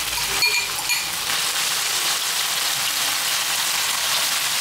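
Sauce-coated octopus sizzling in hot oil in a pan as it starts to stir-fry over high heat, a steady hiss that sets in about a second in, after a single metal clink.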